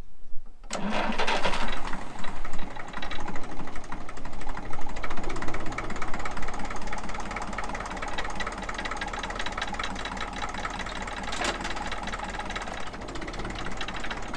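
Ferguson TE20's four-cylinder diesel engine starting suddenly about a second in, running loud for several seconds, then settling to a steady idle. There is a single sharp clunk near the end.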